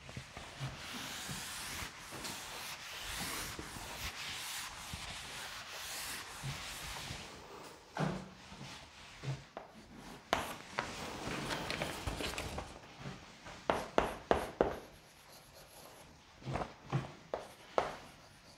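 A duster rubbing steadily across a chalkboard, erasing it. Then, from about eight seconds in, chalk writing on the board in short scratchy strokes and taps.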